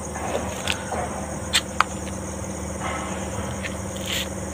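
Insects chirping steadily over a low hum, broken by a few short sharp clicks or scuffs, the loudest about two seconds in.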